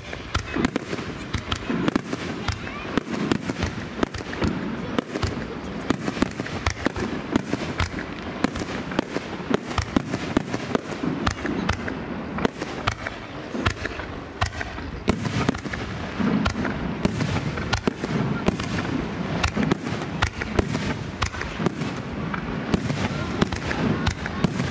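Aerial fireworks going off in a dense, continuous barrage: many sharp bangs and crackles every second, with no pause, over faint crowd voices.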